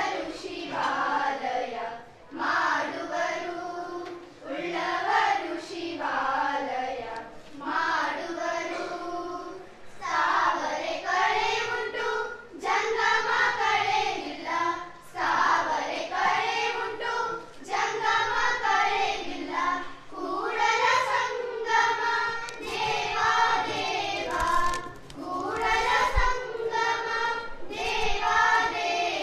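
A group of teenage girls singing together in unison into a single handheld microphone, unaccompanied, in phrases of a few seconds with short breaths between them.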